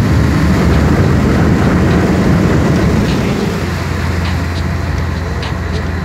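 A boat's engine running steadily with a loud low rumble, over the churning rush of its wake water; the rumble eases slightly about three and a half seconds in.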